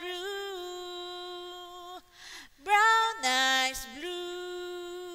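A woman singing the slow closing line of a ballad: a long held note, a breath about two seconds in, then a last phrase that ends on another long held note.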